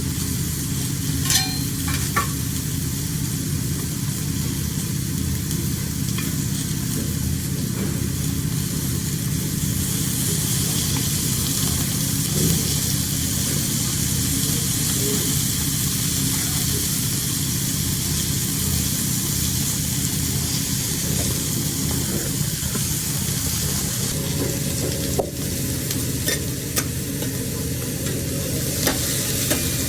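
Seafood sizzling on a hot grill: a steady hiss that grows stronger about ten seconds in, with a few sharp clicks, over a steady low hum.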